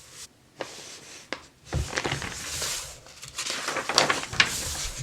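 Paper catalog pages being handled and turned: a couple of soft taps, then rustling, crackling paper from about two seconds in.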